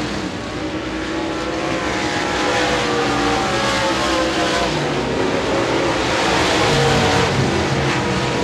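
V8 engines of several dirt-track modified race cars running at racing speed, their overlapping engine notes rising and falling as they go through the turns.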